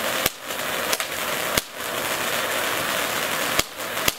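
A lit firework hissing steadily, with about five sharp pops scattered through it at uneven intervals.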